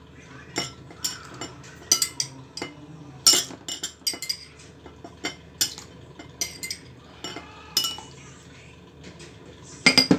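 Metal spoon clinking against glassware as sugar syrup is spooned from a glass bowl into a tall glass: a string of irregular sharp clinks, with a louder quick cluster near the end.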